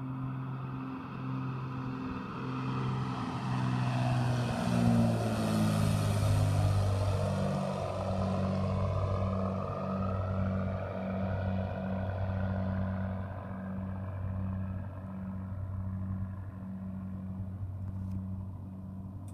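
Twin-engine propeller flying boat passing low overhead. Its engine drone pulses, grows loudest about five seconds in and drops in pitch as the plane goes by, then fades slowly as it flies away.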